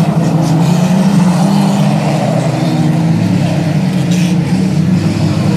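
Engines of a pack of banger racing cars running past on the oval, a loud, steady mix of several revving engines.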